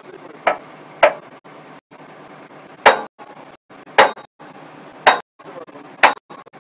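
Hydraulic rock breaker's steel chisel striking: six sharp metallic impacts with a ringing tail, unevenly spaced about a second apart.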